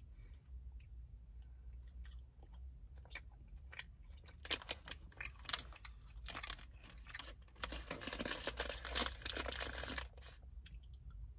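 Someone eating gummy fruit snacks from a plastic pouch: chewing mouth sounds and crinkling of the wrapper. It starts as scattered faint clicks, grows into bursts of crackling about halfway through, and is densest from about two-thirds of the way in until shortly before the end.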